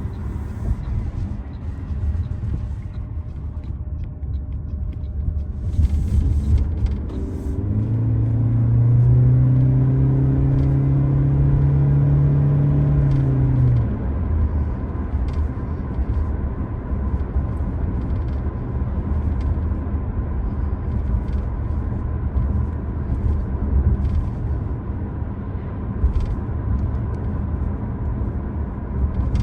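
2025 Toyota Prius Limited driving, with a steady low road rumble and a faint steady whine. From about 8 to 14 seconds in, its 2.0-litre four-cylinder gas engine hums in, rising a little in pitch, then cuts off abruptly as the hybrid returns to electric drive.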